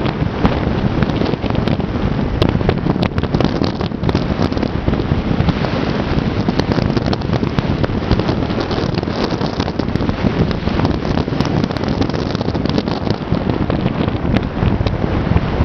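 Loud rushing wind noise buffeting the microphone of a camera in a moving car, over the low drone of tyres and engine, with scattered sharp clicks throughout.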